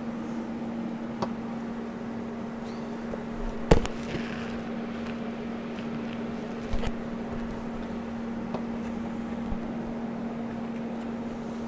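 Steady electrical hum from shop welding equipment, with a few sharp knocks of metal parts being handled, the loudest about four seconds in.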